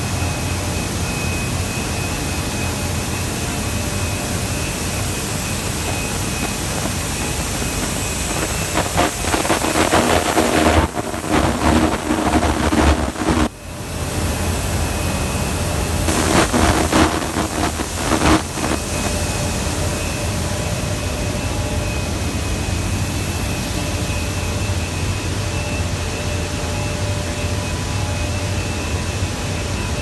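Running machinery of a rubber extrusion and vulcanization production line: a continuous, even rush of fans and motors with a low hum and a faint steady high whine. It grows louder, with extra humming tones, for several seconds in the middle, dipping briefly.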